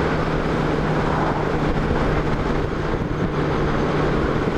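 Touring motorcycle cruising at highway speed: the engine runs with a steady hum under even wind and road noise.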